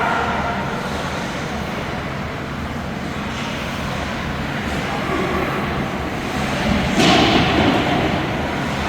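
Ice hockey game sound: a steady wash of skating and spectator noise, with one sharp bang about seven seconds in, followed by a short rise in crowd noise.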